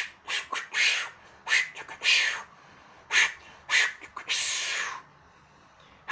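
Beatbox sound effect made with the mouth and a hand, air sucked or blown until it sounds: a string of short, sharp, hissy bursts in an uneven rhythm, then one longer hiss about four seconds in.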